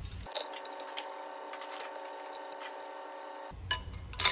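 Metal parts clinking: the injector-sleeve puller and a freshly pulled injector sleeve being handled. There are scattered light clinks over a faint steady hum, then a few louder clinks, with the loudest just before the end.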